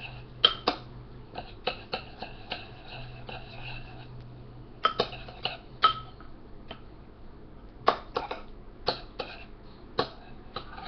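A utensil clicking and tapping against a dish while food is being worked, making an irregular string of sharp clicks and knocks, some with a short ring. A steady low hum runs underneath.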